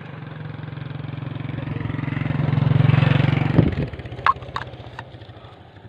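A small motor engine running steadily, growing louder over about three seconds and then dropping away suddenly. A few short sharp clicks follow near the end.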